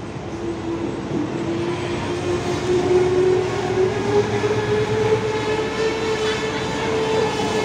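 SA106 diesel railbus accelerating: its engine and transmission whine rises steadily in pitch and grows louder as it gathers speed.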